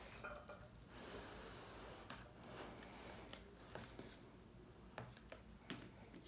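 Near silence with a few faint taps and soft rustles from hands handling a round cardboard gift box and the paper card inside it.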